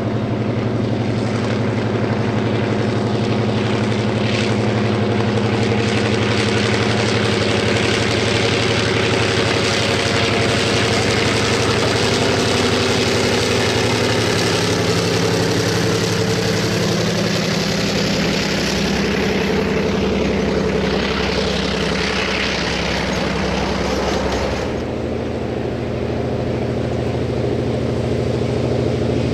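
Double-headed train of a DA-class diesel-electric locomotive and a Ja-class steam locomotive working past: the diesel's steady engine drone under a broad rushing hiss. Near the end the sound changes abruptly as the pair is heard approaching again.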